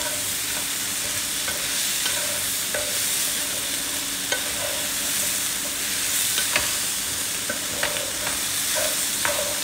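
Shrimp sizzling in a nonstick frying pan with rice wine, stirred and turned with a wooden spatula: a steady sizzle with scattered light scrapes and taps of the wood against the pan.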